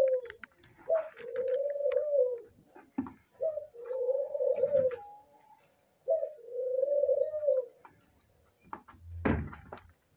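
Albino doves giving their breeding coo: three long, level coos about two and a half seconds apart, each opening with a short rising note. Faint clicks run underneath, and a sharp knock comes near the end.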